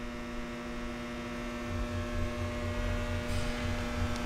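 Steady electrical mains hum, a buzz made of several even, unchanging tones. A low rumble joins under it about two seconds in.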